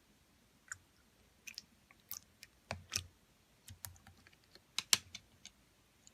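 Clear purple slime being played with by hand, giving a quick irregular series of small clicks and pops.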